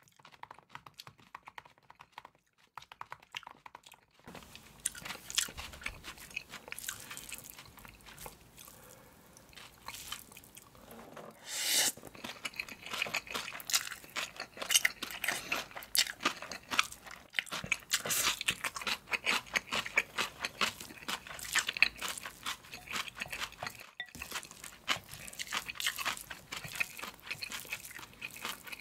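Close-miked eating of spicy mixed noodles with aged kimchi: a few quiet seconds, then wet chewing with many small clicks and crunches. A loud noodle slurp comes about twelve seconds in.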